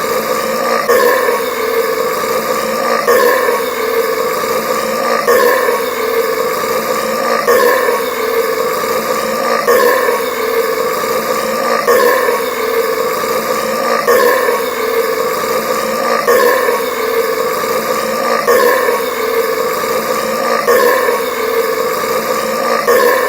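A man's loud, drawn-out burp, looped so that it repeats without a break about every two seconds.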